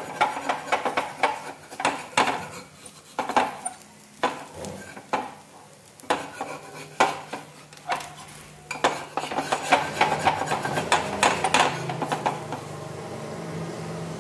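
Metal spatula scraping and tapping against a flat iron tawa in a quick, irregular run of strokes, working under the edge of a besan dhirde to loosen it for flipping. About twelve seconds in the scraping stops and a steady hum remains.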